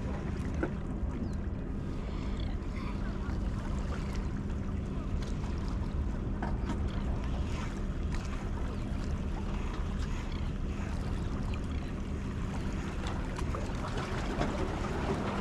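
Steady low drone of a distant engine with a constant hum, over light water and wind noise, with small scattered ticks.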